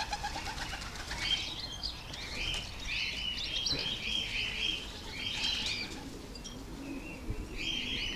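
Racing pigeons' wings flapping in repeated flurries as the birds fly in and land at their loft, home from a training flight.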